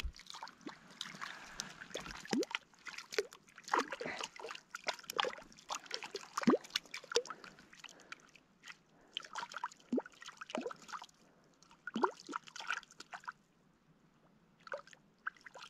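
Small waves lapping and gurgling among shoreline boulders in shallow lake water: irregular soft plops and glugs, dying away briefly near the end.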